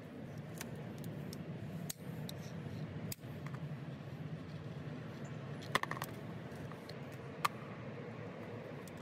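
A few sharp metallic clinks of small hand tools being handled and set down beside the drill, the loudest a short ringing cluster about six seconds in and a single ringing clink about a second and a half later, over a steady low hum.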